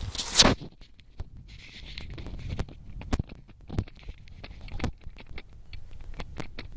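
Footsteps on dry dirt ground, irregular short knocks about every half-second to a second, after a loud brushing rustle in the first half-second.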